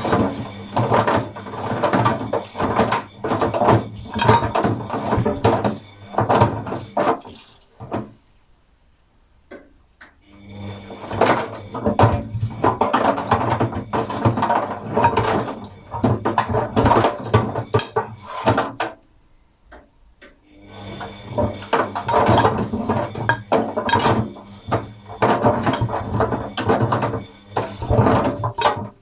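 ATLANT 50U101 washing machine drum tumbling on an express wash, turning in three runs of about eight seconds with short pauses between them, its motor humming under a busy clatter of paint rollers and brushes knocking inside the drum.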